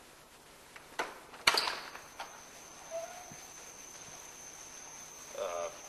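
A door handle and latch click, then a wooden front door is pulled open with a loud clack about a second and a half in. From then on crickets chirp steadily outside.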